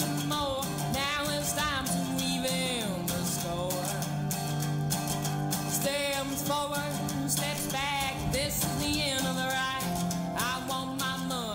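Background music: a country-style song with a singing voice over guitar strumming.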